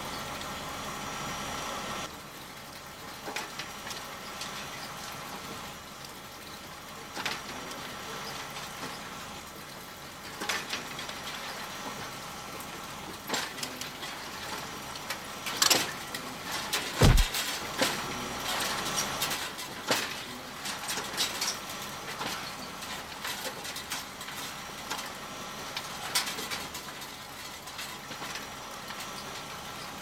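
Film sound effects with no dialogue: a steady engine-like rumble for about the first two seconds, then scattered foley knocks, rustles and clicks, with one heavy thump about 17 seconds in.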